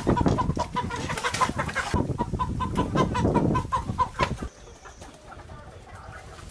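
Chickens clucking and squawking in a fast, repeated call amid scuffling as they are grabbed by hand. The sound drops off abruptly about four and a half seconds in.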